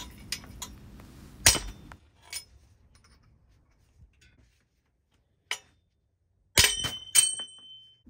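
Steel bottom bracket cups of a one-piece-crank American bottom bracket being bashed out of a Huffy cruiser frame: scattered sharp metal knocks and clinks, then a quick cluster of strikes near the end that leaves a brief metallic ring.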